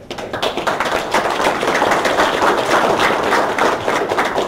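Audience applauding, many hands clapping at once, building over the first second.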